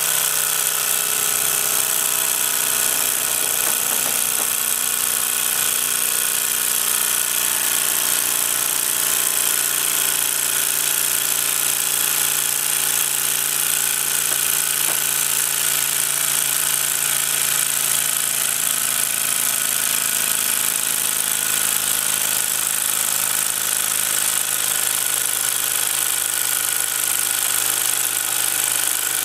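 Mamod SP6 single-cylinder toy steam engine running flat out, a steady, fast mechanical chatter from its piston and flywheel that sounds quite manic.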